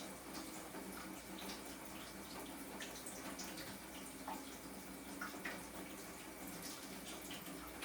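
Water dripping and trickling from a plumbing fitting that is not yet sealed tight: scattered small drips over a faint steady trickle.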